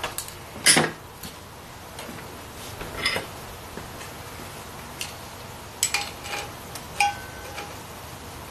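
Metal hand tools clinking and clanking against metal: separate sharp clinks spread through, the loudest about a second in, a few of them ringing briefly.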